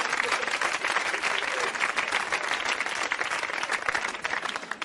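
Audience applauding after a joke, the clapping fading away near the end.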